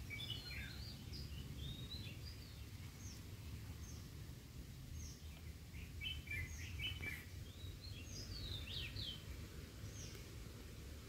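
Birds chirping and calling on and off, short high chirps and quick falling notes, over a steady low rumble.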